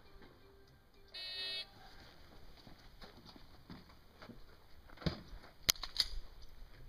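Electronic shot timer giving a short start beep about a second in, then a few seconds later several sharp gunshots.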